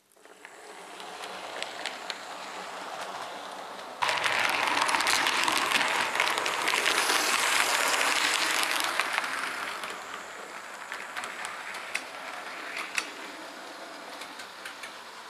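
Model train running along the layout's track: a steady rolling clatter of metal wheels and motor. It jumps louder about four seconds in, then slowly fades, with a few sharp clicks near the end.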